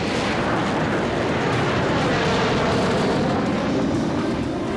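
Blue Angels F/A-18 jets flying past, a loud steady rush of jet noise whose pitch sweeps downward over the first couple of seconds as they go by.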